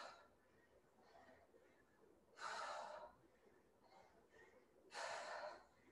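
A woman breathing out hard twice, about two and a half seconds apart, one breath per rep of dumbbell squat-and-press.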